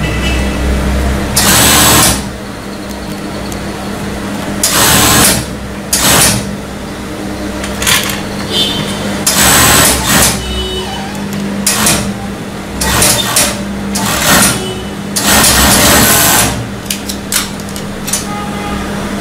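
Industrial four-thread overlock machine stitching in about nine short stop-start runs, the longest a second or so, over a steady hum.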